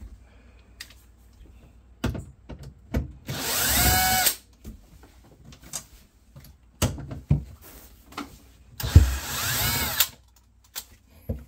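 Power drill-driver run twice, about a second each time, its motor pitch rising, backing out two bolts that hold a cover inside a refrigerator. Sharp clicks and knocks of handling fall between the runs.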